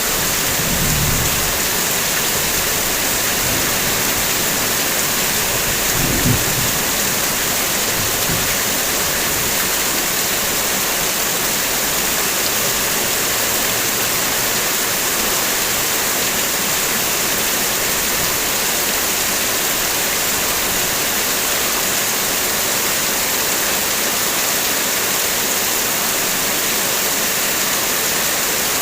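Heavy rain falling on a car, a steady dense hiss, with two brief low rumbles about one and six seconds in.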